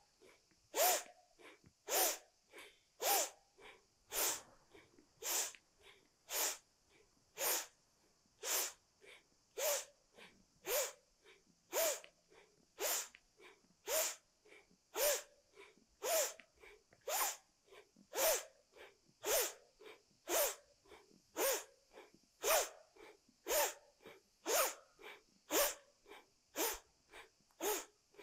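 A woman doing forceful, rhythmic yoga breathing: a sharp, loud breath about once a second, with quieter breaths between, kept up steadily as a Kundalini 'powerful breath' exercise.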